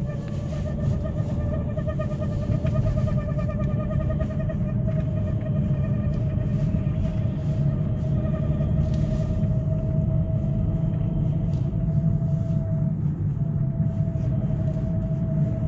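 Hyundai Creta under way with a steady, warbling squeak-whine, over the rumble of road and engine. The whine creeps slightly up in pitch as the car gains speed and drops out briefly about two-thirds of the way through. This squeak appears when pulling away and gets stronger with speed and throttle.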